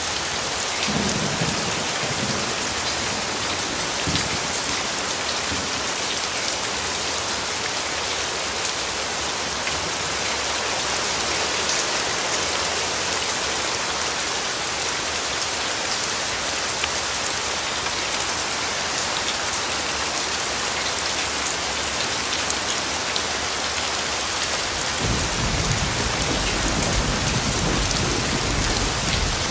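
Steady rain falling, an even dense hiss of drops on hard surfaces; a low rumble of distant thunder comes in near the end.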